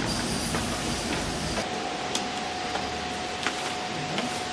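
Steady factory machinery noise with a few light, sharp clicks; about a second and a half in the low rumble drops and a thin steady tone comes in and holds.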